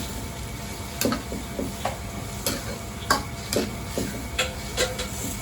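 Stir-frying in a wok: steady sizzling under irregular sharp metal knocks and scrapes of a ladle against the wok, roughly every half second.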